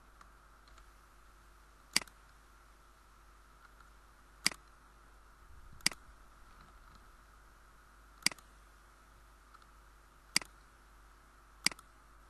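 Computer mouse clicked six times, single sharp clicks spaced irregularly a second or two apart.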